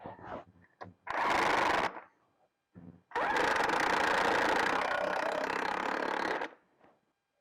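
Impact wrench running on socketed nuts in two runs: a short burst about a second in, then a longer one of about three seconds.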